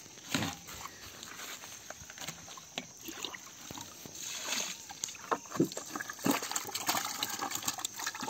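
Water sloshing and splashing in a bucket, with irregular slaps and knocks: freshly caught tilapia thrashing in it.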